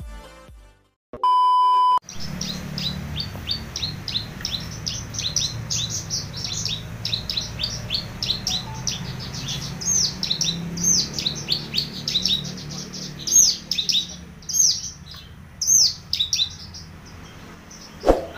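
A loud electronic beep of under a second, then a caged Horsfield's bush lark (branjangan, parva race) singing without pause: a fast run of sharp, high chirping notes over a low steady hum.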